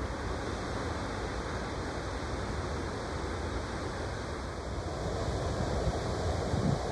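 Ocean surf washing onto a sandy beach, a steady rush of breaking waves. Wind buffets the microphone in a few low gusts near the end.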